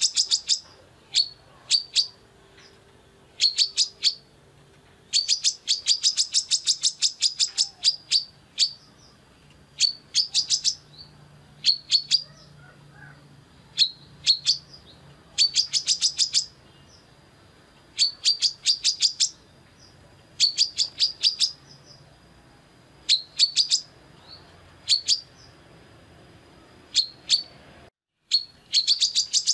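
Female brown-throated sunbird (kolibri kelapa) singing vigorously: rapid runs of sharp, high chirps in bursts every second or two, with a faint thin steady tone between them. The sound cuts out briefly near the end.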